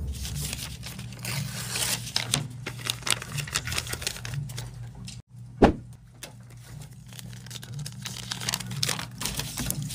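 Crinkling, rustling handling noise with many small scattered clicks over a low steady hum, and a single short thump a little past halfway.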